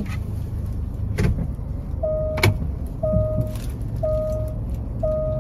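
Suzuki Spacia's reverse-gear warning chime: a short, soft 'poo' beep repeating about once a second, four times from about two seconds in, over a low hum. A sharp click comes about a second in, and a louder one just after the first beep.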